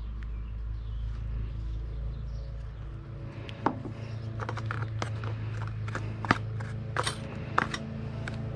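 A stir stick clicking and scraping now and then against its container while fibreglass resin is mixed by hand, over a steady low hum.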